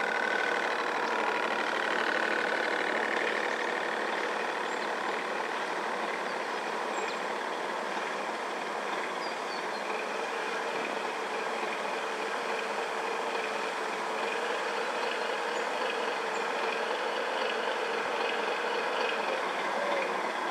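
Small electric motors of radio-controlled model boats running steadily: a faint whine over an even hiss, with a higher tone that fades out a few seconds in.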